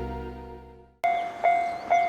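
Background music fades out, then about a second in a Japanese railway level-crossing warning bell starts abruptly, ringing its repeated electronic clang at about two strikes a second.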